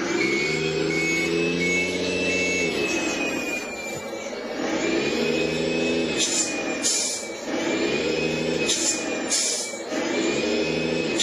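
Toy RC semi-truck with a simulated diesel engine sound, revving up and settling back several times over a thin high whine. Short hissing bursts like air-brake releases come at several points in the second half.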